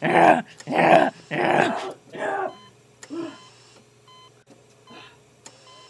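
A run of loud wordless yelps, four in quick succession over the first two and a half seconds, then a fainter one about three seconds in, trailing off to quiet.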